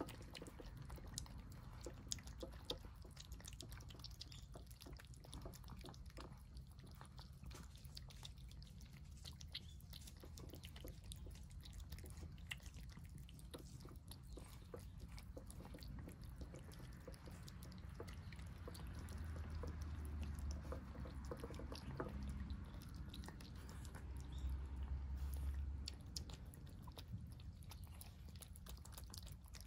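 Cats chewing wet food in gravy from a bowl: quick, soft, wet clicks and smacks. A low rumble swells twice in the second half.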